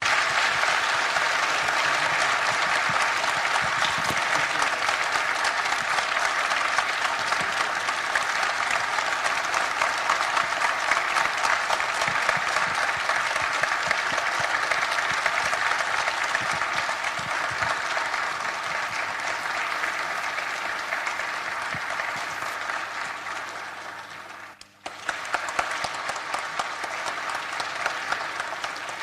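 Auditorium audience applauding, a dense steady mass of clapping that thins out past twenty seconds, breaks off briefly near the end, then starts again somewhat quieter.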